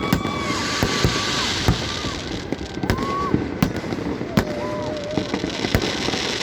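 Fireworks display: a string of sharp bangs about one a second over a steady crackle, with a few long high tones that bend in pitch at their ends.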